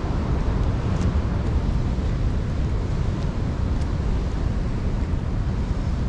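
Typhoon wind buffeting the microphone: a steady low rumble with no let-up.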